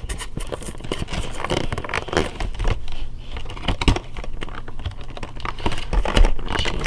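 Packaging being opened close to the microphone: irregular crinkling, tearing and scraping of plastic wrap and cardboard as a Pokémon card collection box is unwrapped.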